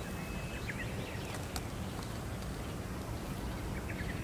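Outdoor ambience: a steady background hiss with small birds chirping now and then, a few chirps near the start and a few more about three seconds in.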